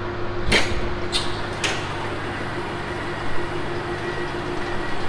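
Push-button powered door to a ferry stairwell opening: a sharp clunk about half a second in, then two lighter knocks over the next second. Under it runs the steady hum of the ferry's car deck.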